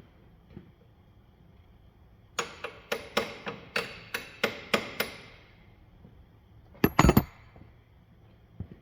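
A hammer striking metal, driving a strut-to-knuckle bolt out during CV axle removal: a run of about ten quick ringing taps, then two or three much harder blows about seven seconds in.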